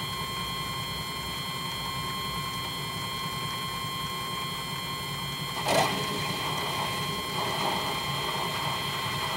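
Mini metal lathe running steadily with a constant motor whine as the cutting tool faces the spinning brass part. There is one short knock a little before six seconds in.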